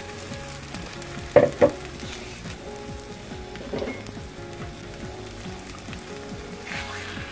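Potato-and-egg tortilla mixture frying in hot oil in a pan, with a steady sizzle. There are two sharp knocks about a second and a half in, and a wooden spatula works the mixture in the pan.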